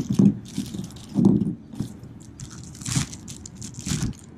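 Plastic parts bag crinkling and rustling in irregular bursts as a new fuel door actuator is worked out of it.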